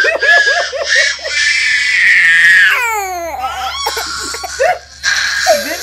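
Young children crying: a quick run of short rhythmic cries, then a long high-pitched wail, then cries sliding down in pitch, with a brief pause before the crying starts again near the end.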